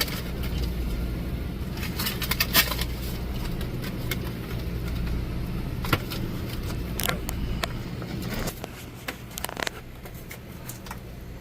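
Scattered light clicks and knocks from hands-on installation work, over a steady low hum and rumble that eases off after about eight seconds.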